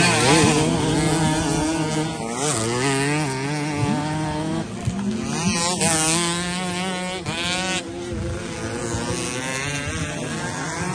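Several small racing motorcycle engines revving at once, their pitch climbing and dropping as the throttle is worked and gears change, with the loudest, quickest rises near the middle.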